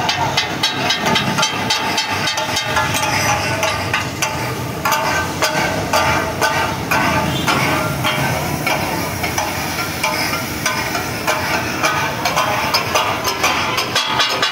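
Steel spatulas rapidly clacking and scraping on a flat iron griddle (tawa) as cooks chop and turn meat, in a steady rhythm over the hiss of sizzling food.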